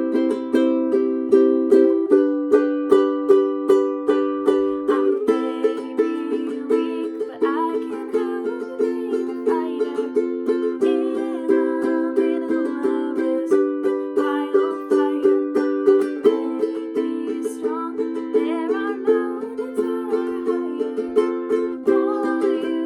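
Ukulele strummed in a steady rhythm, with a voice singing a melody over it from about five seconds in.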